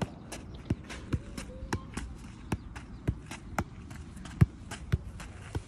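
A soccer ball being juggled: a dull thud at each touch, roughly two a second at uneven spacing, one much louder touch about four and a half seconds in.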